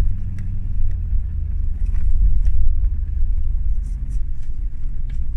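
Low, steady rumble of a car driving over desert sand, heard from inside the cabin, with a few faint clicks and rattles.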